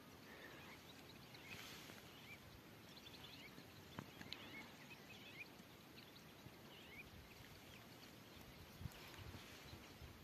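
Near silence: faint outdoor background with small birds chirping faintly here and there, and a single light click about four seconds in.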